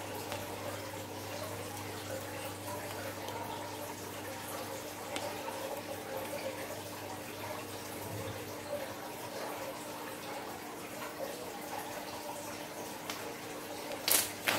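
Glossy slime being stretched, folded and pressed by hand, giving a steady soft wet, sticky crackle. A loud short squelch comes near the end as both palms press down on it. A low steady hum sits underneath.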